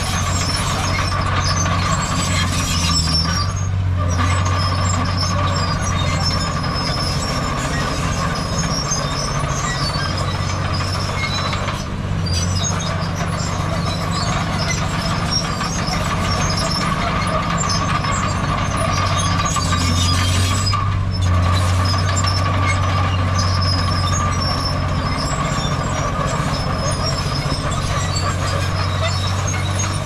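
Diesel engine of heavy earthmoving machinery running steadily, with a steady high-pitched whine over the engine note.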